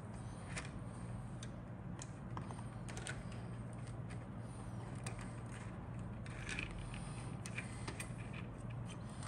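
Plastic model-kit sprue being handled and shifted on a cutting mat: scattered light clicks and taps of the styrene parts, over a steady low hum.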